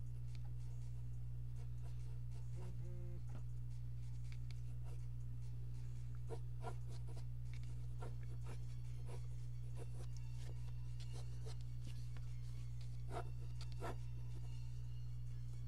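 Mechanical pencil scratching across drawing paper in short sketching strokes, with busier runs about six seconds in and again near the end, over a steady low hum.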